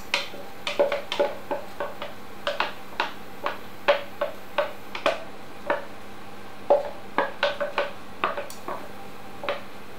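A spoon tapping and scraping double cream out of its pot into a saucepan: a run of sharp, irregular clicks and knocks, two or three a second.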